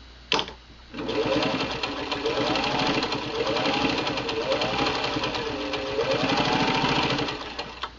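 Singer 15-91 sewing machine's gear-driven motor running and stitching through denim, a fast even patter of needle strokes for about six seconds, its speed rising and falling. A click comes just before it starts.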